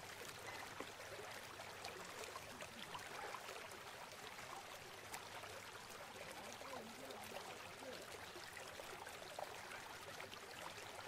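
Faint, steady sound of running floodwater trickling, with scattered small clicks and splashes.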